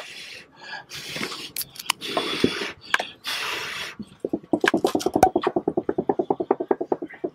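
A man blowing hard in about four long puffs of breath. Then, from about four seconds in, a plastic plate is fanned rapidly, flapping about eight times a second.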